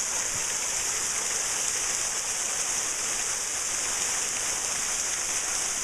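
Waterfall pouring steadily, an even hiss of falling and splashing water.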